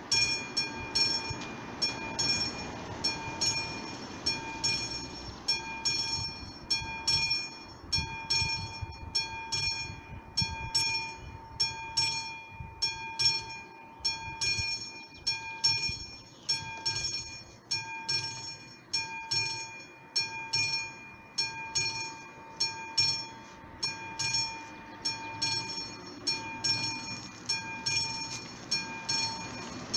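Classic mechanical crossing bell on an AŽD 71 level-crossing warning signal, ringing with rapid metallic strikes that swell and fade about once a second. It is the warning that the crossing is closing for an approaching train.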